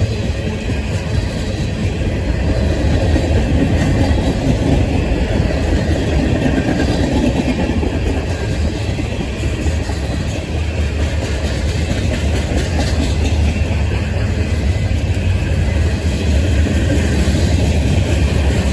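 A CSX manifest freight train's cars rolling past, with the steady, heavy rumble of steel wheels on the rails.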